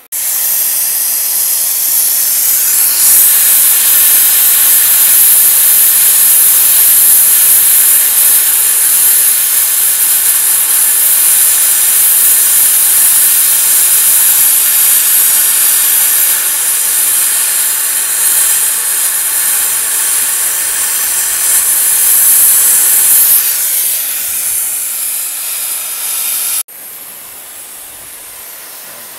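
Oxy-fuel cutting torch on a Mathey Dearman Mini Jolli pipe beveler hissing steadily as it cuts through a steel pipe. The loud hiss drops suddenly to a much quieter hiss near the end.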